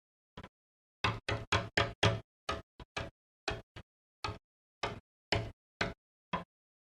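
Knocking and tapping on a window pane: a light tap, then a quick run of about five hard knocks, followed by single knocks and a few softer taps at uneven intervals.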